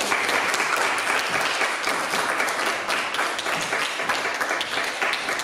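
A small audience applauding, a dense patter of many hands clapping together.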